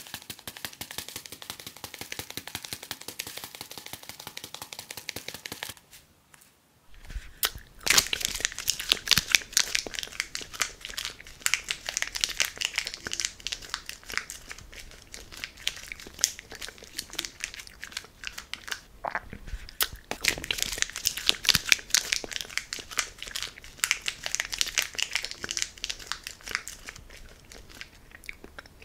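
Dry chili flakes pouring and being shaken out of a plastic tub onto a plate, making a dense crackling patter. It stops briefly about six seconds in, then comes back louder and more uneven in waves.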